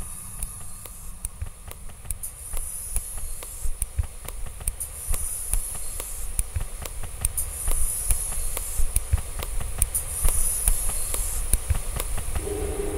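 Sound collage of classroom objects being handled, a whiteboard marker and a swivel chair among them. A swishing hiss swells about every two and a half seconds over a dense patter of clicks and taps and a low rumble.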